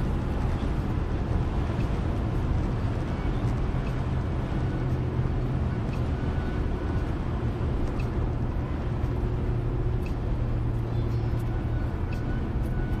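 Steady engine and tyre noise of a car cruising on a highway, heard from inside the cabin as an even low rumble with a faint steady hum.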